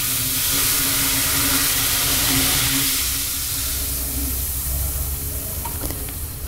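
Boiling-hot vinegar poured onto baking soda in a stainless-steel sink drain, splashing and fizzing with a steady hiss. The hiss fades after about three seconds as the pour ends and the foam settles.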